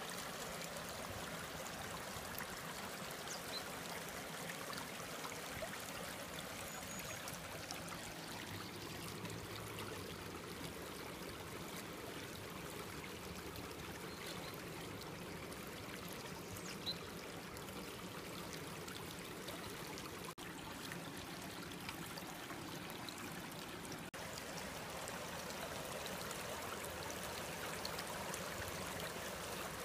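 Mountain stream running, a steady rush and trickle of water.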